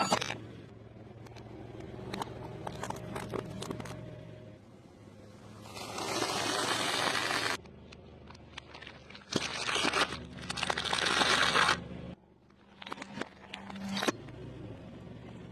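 Close-miked eating sounds: chewing and crunching fried food, with many sharp mouth clicks and two longer, louder stretches of crunching about six and ten seconds in.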